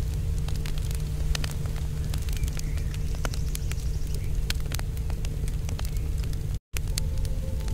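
Fire cakes burning in open flames, with scattered sharp crackles over a steady low rumble; the sound cuts out for a moment near the end.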